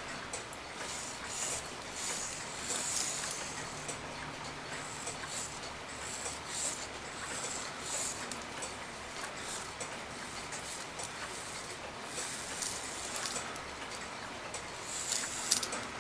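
Light, irregular clicks and rustling from hands working on a cuckoo clock movement.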